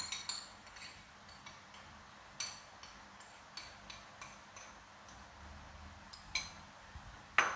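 Metal spoon scraping and clinking against a ceramic bowl as thick sauce is scraped out into a pan: light, scattered ticks throughout, with one louder clink near the end.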